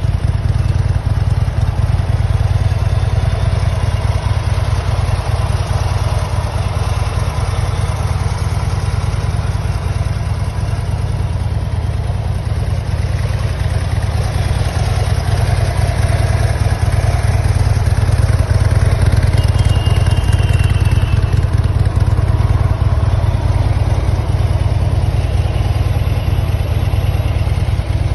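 Harley-Davidson Fat Bob's V-twin engine idling steadily through Vance & Hines Long Shots exhaust pipes, a loud, deep and even rumble.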